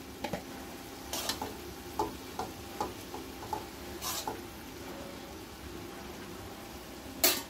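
Metal spatula stirring cabbage and tomato in a metal kadai over a steady low frying sizzle, with scattered clinks and scrapes of the spatula against the pan and one louder clank near the end.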